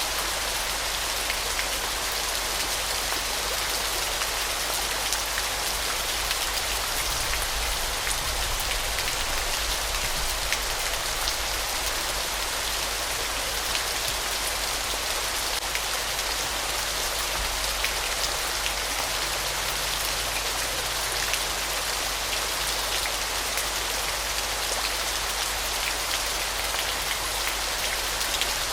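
Waterfall: falling water splashing steadily, a dense even hiss dotted with fine droplet spatters like rain.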